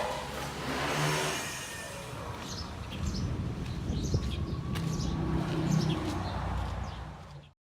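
Short bird chirps over a low, steady rumble like traffic, all cutting off abruptly near the end.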